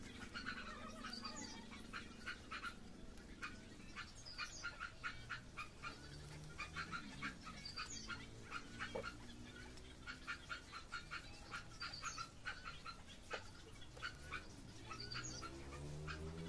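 Hair-cutting scissors snipping through hair in quick runs of sharp little clicks.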